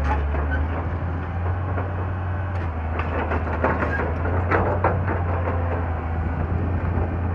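Cat 320D excavator's six-cylinder diesel engine running steadily under working load, with scattered clanks and knocks from the machine's bucket and tracks in the middle stretch.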